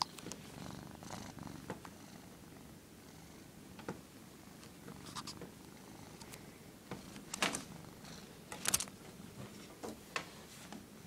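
A cat purring close to the microphone, broken by several short, sharp scratchy rustles of the cat against the phone, the loudest two past the middle.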